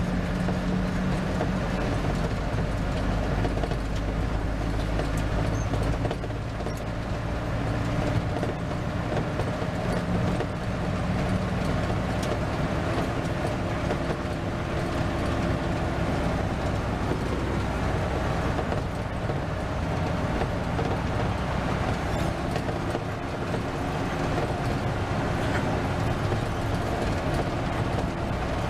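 Medium-size bus running along the road, heard from inside the cabin: a steady engine drone with road noise, the engine note shifting pitch several times as the speed changes.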